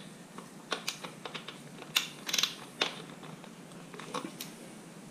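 Socket ratchet clicking in short irregular runs as it works the foot nut at the bottom of a Fox 40 fork lower leg loose; the loudest clicks come about two seconds in.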